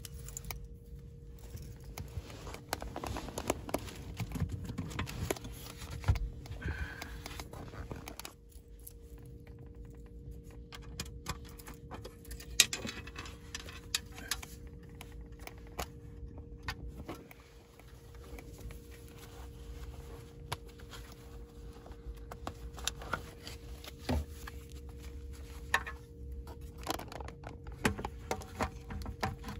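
Keys jangling on a key ring, then a long run of scattered clicks, knocks and rubbing as a holstered pistol, a magazine and a small foam-lined lockbox are handled, over a steady low hum.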